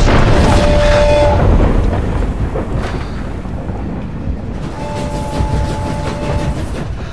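Steam train running with a steady low rumble, louder in the first two seconds. Its whistle blows a two-note chord twice: briefly about half a second in, then longer from about five seconds in.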